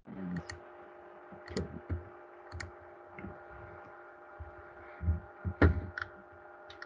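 Several computer mouse clicks and soft low thumps, irregularly spaced, over a steady electrical hum made of several held tones.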